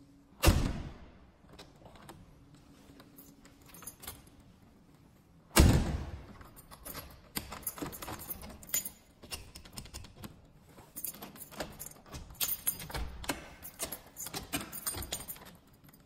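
SIEGENIA hinged-door handle and multipoint lock being worked on an aluminium glass door: two loud metallic clunks, about half a second and five and a half seconds in, then a long run of clicks and rattles from the lock and the bunch of keys jangling in the cylinder.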